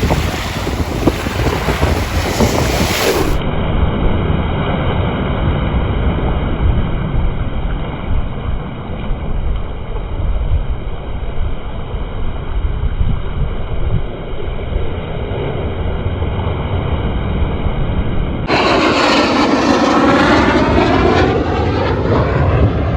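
Wind and sea noise on the microphone, then, from about 18 seconds in, a louder aircraft passing low overhead, its sound sweeping down and back up in pitch as it goes by.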